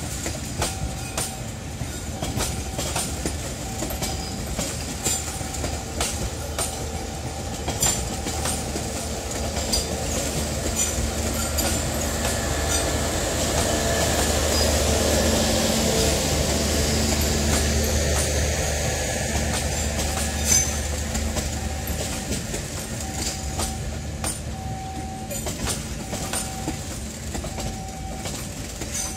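Passenger coaches rolling slowly past on station track, their wheels clicking over the rail joints. A low rumble grows louder through the middle and eases off after about twenty seconds.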